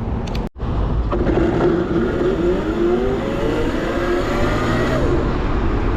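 Razor RSF650 electric street bike's drive whining and rising steadily in pitch as the bike accelerates, over road and wind noise. The sound cuts out for an instant about half a second in.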